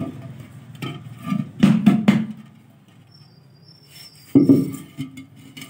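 Dull knocks and scraping of a terracotta pot being handled on a concrete floor: two knocks about two seconds in and another about four and a half seconds in.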